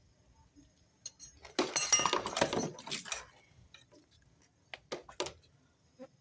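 Small hard objects, metal or glassy, clinking and clattering together for about a second and a half, then a few separate light clicks.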